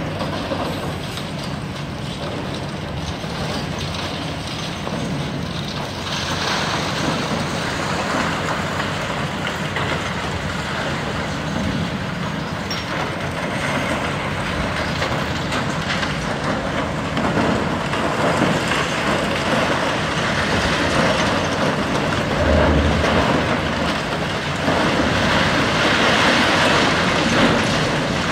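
A high-reach demolition excavator at work on a concrete building: a steady diesel engine hum under continuous crunching and clattering of broken concrete and rebar. It grows louder about six seconds in and is loudest near the end.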